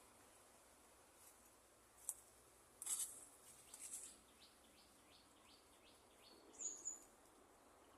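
Faint small-bird chirping in near silence: a quick run of short high calls, then two brighter high chirps near the end, with a brief faint rustle about three seconds in.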